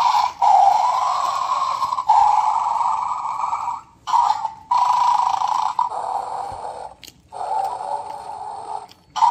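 Electronic growling from a battery-powered 'bad dog' bulldog toy's small speaker, set off as food is lifted from its bowl. It comes in several long stretches with short breaks between them.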